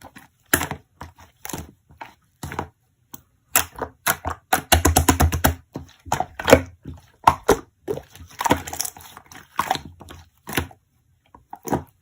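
Slime being squished and pressed by hand, giving an irregular run of sharp crackly pops and clicks, with a longer stretch of wet squashing about four to six seconds in.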